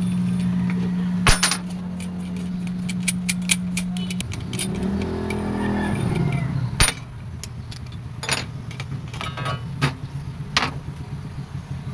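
A steady machine hum that stops about four seconds in, then a short wavering sound that rises and falls. After that come light metallic clicks and clinks as the spring and top collar of a Honda XR200 rear monoshock are handled and removed.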